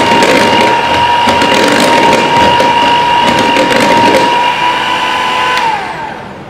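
Electric hand mixer running at low speed, beating butter, sugar and egg yolk in a bowl: a steady motor whine with light ticks from the beaters. Near the end it is switched off and its pitch falls as the motor winds down.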